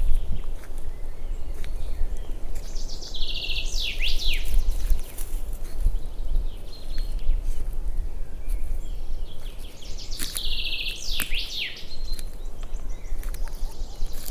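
Nightingale singing two song phrases about seven seconds apart, each a fast run of high notes ending in sharp sweeping whistles, over a steady low rumble.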